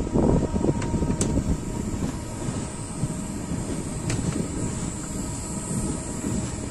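Running sound of an express train at speed, heard from the coach: a steady rumble of wheels on the track, busier and louder in the first second or so, with a few sharp clicks.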